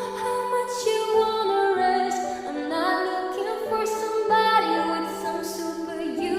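Slowed-down pop song: a singing voice over held notes, with no beat.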